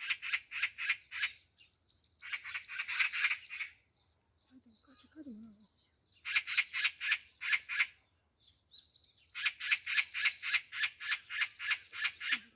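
Oriental magpie giving its harsh chattering rattle in four bursts of rapid 'chak' notes, about five or six a second: an alarm call scolding a stray cat crouched under the tree.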